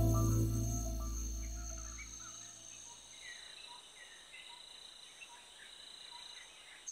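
A low held music chord fades out over the first two seconds or so. It leaves a faint, steady high trill of insects with a few short scattered bird chirps.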